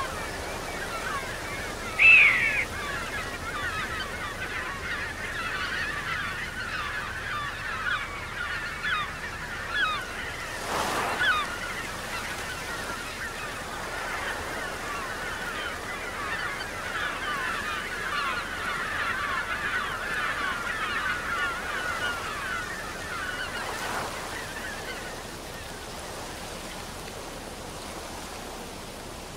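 A flock of geese calling continuously, a dense chatter of many short honks, with one louder call about two seconds in. The calling dies away near the end.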